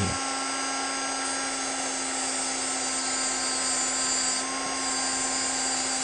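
Dremel rotary tool with a cut-off wheel running at a steady whine while grinding into a key, with a higher grinding hiss from about a second in as the wheel cuts the metal. The cut is being widened so the lock pin will sit lower.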